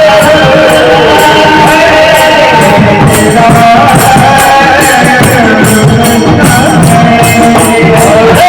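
A man singing a Marathi devotional bhajan in long, held, ornamented phrases, with musical accompaniment and a steady beat of small metallic percussion.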